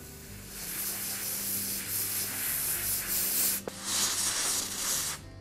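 Aerosol carburetor cleaner sprayed through its red extension straw onto a small carburetor part: a steady hiss of about three seconds, a brief break with a small click, then a second, shorter hiss.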